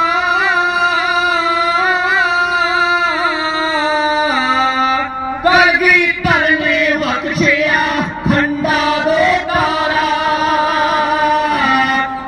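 Sikh kirtan: devotional hymn singing with musical accompaniment, heard over a PA loudspeaker. A long, wavering held note fills the first few seconds. From about halfway the singing turns livelier and louder, with sharp percussive strokes.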